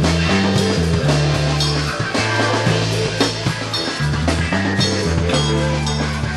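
Band music: drum kit keeping a steady beat under electric guitar and a bass line that moves between notes.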